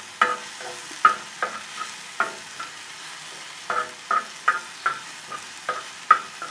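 A utensil stirring and scraping an onion-tomato masala around a tawa in irregular strokes, with short ringing clinks, over a low sizzle of the mixture frying in ghee on a low flame.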